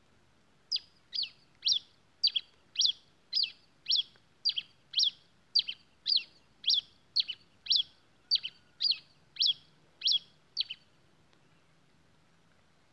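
Grey pileated finch (tico-tico-rei-cinza) singing: a series of about eighteen sharp, downward-slurred chip notes, about two a second, some doubled, lasting some ten seconds before it stops.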